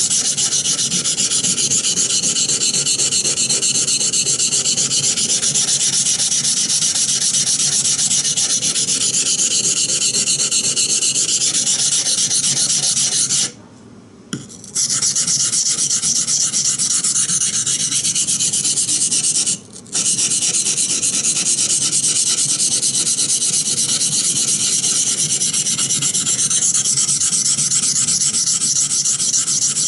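Steel blade of a Bark River Bushcrafter knife being ground back and forth on a coarse 120-grit waterstone: continuous, rapid, gritty scraping strokes, stopping for about a second near the middle and briefly again a few seconds later. This is the coarse stage of flattening the knife's bevel.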